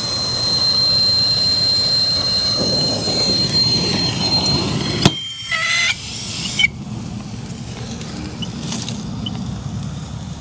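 Oxy-acetylene brazing torch burning on a copper suction line joint, a steady hiss with a high whistle over it. About five seconds in it is shut off with a sharp pop and a second of short squeaks, leaving a quieter low hum.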